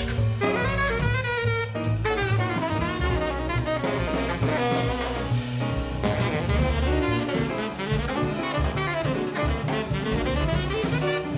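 Tenor saxophone playing a fast, running jazz solo line over a rhythm section of bass and drums with ride cymbal.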